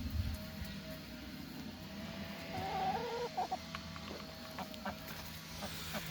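Domestic hens clucking, with a short run of louder calls about three seconds in.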